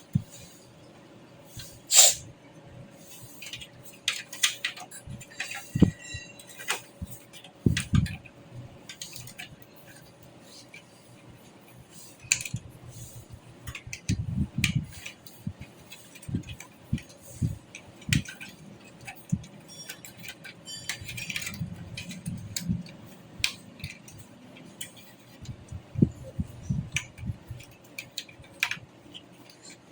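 Irregular clicks, clinks and knocks of small metal parts and a desktop computer case being handled, over a faint steady hum.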